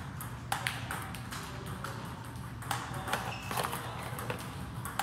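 Celluloid-type table tennis balls clicking sharply as they bounce on the table and are struck with paddles during rapid multiball backhand practice: a quick, uneven series of pings.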